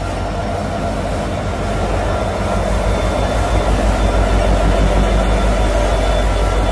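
Freight train rolling past close by, tank cars and boxcars clattering over the rails with a steady heavy rumble that grows louder over the first few seconds.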